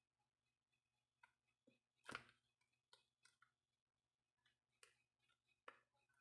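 Near silence with a few faint, short clicks and taps, the loudest about two seconds in.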